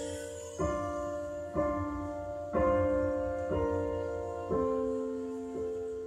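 Slow piano chords in recorded music played over open-baffle hi-fi loudspeakers, struck about once a second and each left to ring and die away.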